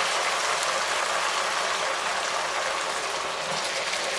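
Pumpkin cubes frying in hot oil in a frying pan: a steady sizzle, easing slightly, as spoonfuls of soy sauce go in.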